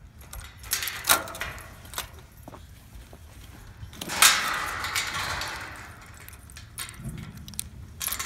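Handling noise from a phone camera carried over straw-covered ground, with footsteps: a few sharp clicks in the first two seconds and a louder rustling swell about four seconds in.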